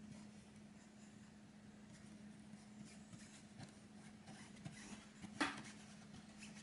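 Faint scratching and light ticks of a drawing tool against a stretched silk screen, with one sharper click about five seconds in, over a steady low hum.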